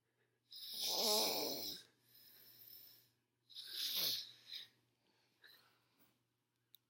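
A sleeping woman snoring: two loud, rattling snores about three seconds apart, the second falling sharply in pitch, with quieter breathing between them. A single small click comes near the end.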